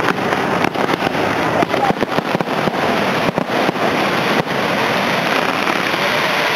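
Aerial fireworks shells bursting in a dense barrage: many sharp bangs in quick succession over a constant noisy din.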